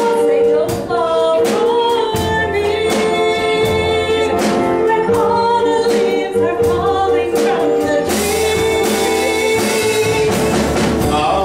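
Women singing a cabaret song together over instrumental accompaniment with a steady beat, the voices holding long notes.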